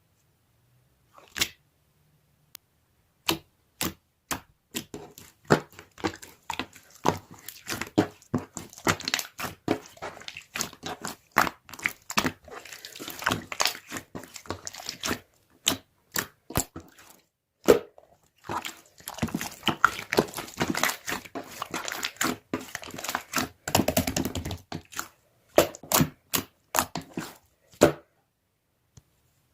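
Slime being squeezed and poked by hand, giving off irregular sticky clicks, pops and crackles, coming thick and fast in two long stretches in the middle and near the end.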